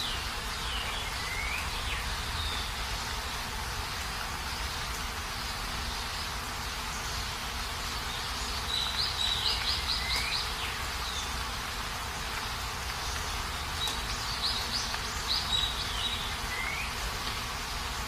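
Heavy rain falling steadily, with a few short high chirps over it and quick trills about nine and fifteen seconds in.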